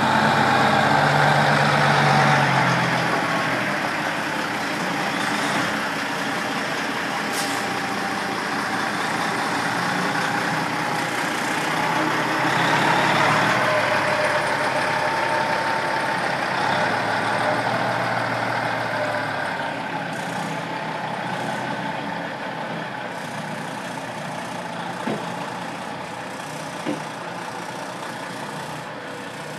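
Vacuum pump truck running steadily, with a thin steady whine over the engine. The low engine note drops about three seconds in, the sound slowly gets quieter, and there are two short knocks near the end.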